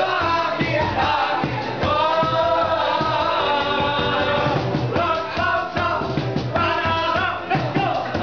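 A group of restaurant waiters singing together to music with a steady beat.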